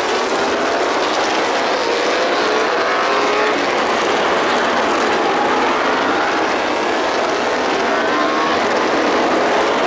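Several Grand Prix racing motorcycles passing together on track, their engines rising in pitch again and again as they accelerate hard through the gears.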